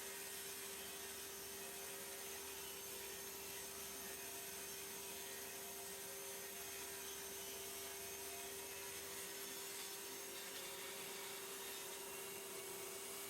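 Table saw running steadily with a constant motor whine over hiss and no cut under way; a low rumble beneath it drops away about nine seconds in.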